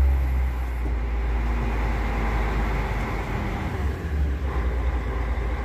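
Tadano GT-600EX truck crane's diesel engine running at a light rev while its suspension is being levelled, steady throughout, easing a little about three seconds in and picking up again.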